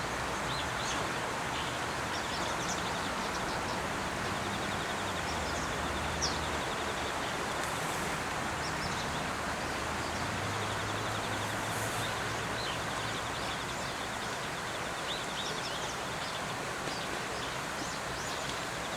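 Steady outdoor background hiss, with scattered faint, short, high bird chirps and twice a fast, faint ticking trill.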